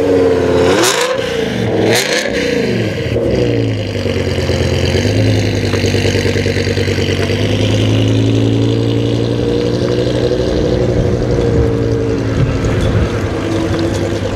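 BMW E60 M5's V10 on Eisenmann exhausts, blipped twice in quick succession near the start, each rev rising and falling sharply. It then settles into a steady, low-revving exhaust note as the car drives slowly away.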